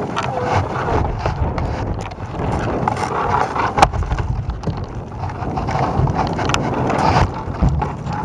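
Wind buffeting the microphone of a camera hanging from a tethered balloon payload, with a steady low rumble and a few sharp knocks or clicks, the strongest about four seconds in.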